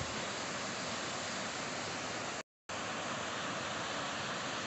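Waterfall spilling over a dam and down rocks, a steady rushing of water. It cuts out to silence for a moment a little over halfway through.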